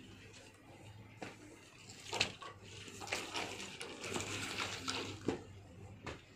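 Rustling and scraping of bundled electrical wires being pulled and handled, with a couple of sharp knocks in the first two seconds and the busiest rustling in the middle of the stretch, over a faint steady low hum.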